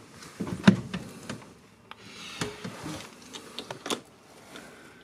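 Ignition and starter of a Volvo Penta boat engine being worked for a cold start: a sharp click about a second in, then scattered clicks and a short mechanical whirring.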